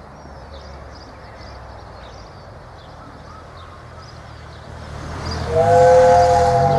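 A 15-inch-gauge miniature steam locomotive approaching, at first a faint low rumble with birds chirping. About five seconds in, its steam whistle sounds loudly: a steady chord of several notes, held.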